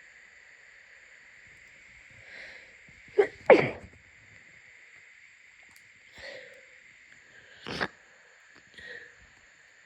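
A person with a congested head cold sneezing into a blanket: a quick double sneeze about three seconds in and a single sneeze about four seconds later, with softer sniffs around them.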